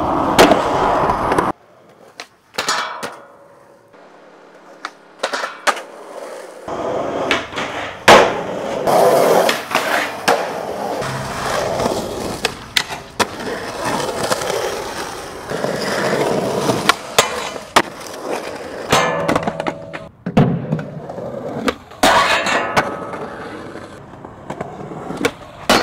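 Skateboard wheels rolling on pavement, with sharp clacks and bangs from the board popping and landing, over several short clips cut together.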